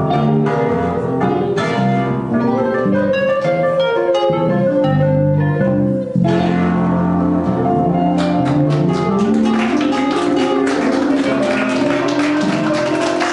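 Live instrumental blues-rock played on a Squier Stratocaster electric guitar with keyboard accompaniment. About two-thirds of the way through, audience clapping joins in over the still-sounding music.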